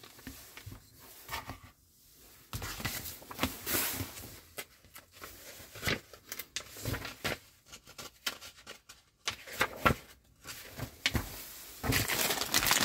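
Packaging being handled and opened: irregular rustling and crinkling of plastic and card, with scattered clicks and taps, growing denser and louder near the end.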